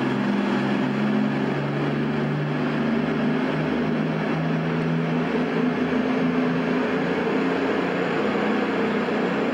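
Underfloor diesel engines of a Virgin Voyager diesel multiple unit running as the train pulls away along the platform. It is a steady drone whose low engine note wavers slightly in pitch.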